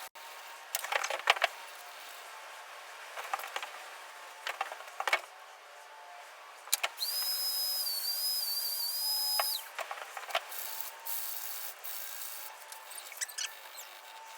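Dremel rotary tool sanding a deer-antler ring: scratchy rubbing with scattered clicks. A steady high whine rises about seven seconds in and lasts about three seconds.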